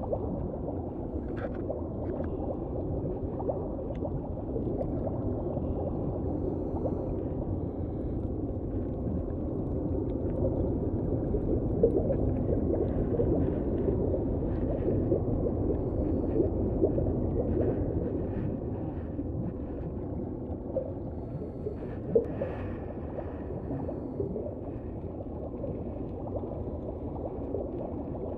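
Muffled underwater ambience picked up through a GoPro's waterproof housing: a steady low rumbling wash of water noise with scattered faint clicks and a couple of sharper ticks.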